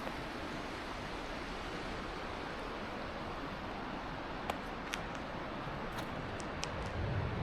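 Steady outdoor background hiss, with a few sharp ticks in the second half and a low rumble swelling near the end.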